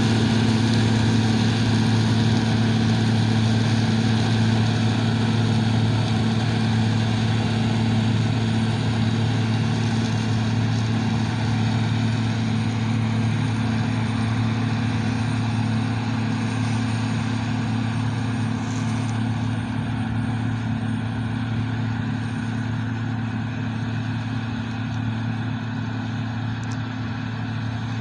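John Deere Hillmaster combine running steadily while harvesting corn: a constant low engine and machinery drone that slowly grows quieter.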